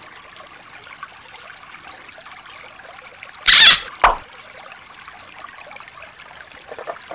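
Shallow water trickling steadily over stones. About three and a half seconds in, a brief loud burst of noise sweeps downward in pitch, followed by a second, shorter one.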